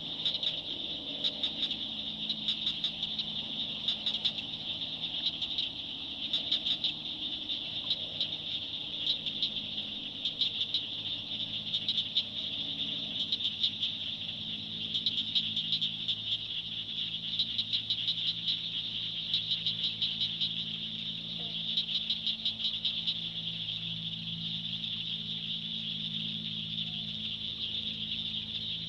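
Dusk chorus of frogs and insects in a swamp: a steady high-pitched trill, with bursts of rapid clicking calls every couple of seconds and a low steady hum underneath.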